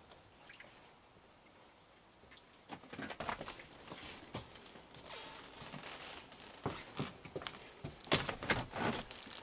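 Raccoons feeding at a yellow bucket and scattered food: irregular crunching, clicking and wet dabbling sounds that start about two and a half seconds in and are loudest near the end.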